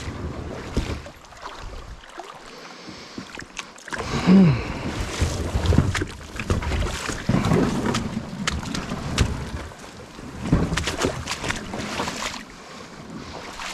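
Kayak being worked through very shallow creek water: irregular paddle splashes and knocks against the hull, with a short falling squeak about four seconds in.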